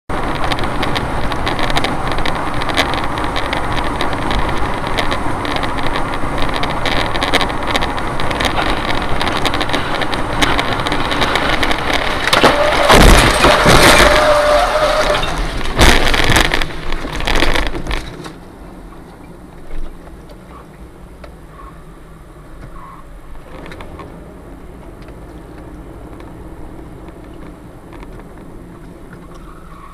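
Steady road and tyre noise from a car on a wet highway, heard through a dashcam inside the car. About twelve seconds in comes a loud crashing rush as a Tu-204 airliner's wreckage breaks up across the road ahead, with a steady tone for a couple of seconds and then sharp impacts until about eighteen seconds. After that the noise drops to a low hum, with one short thump.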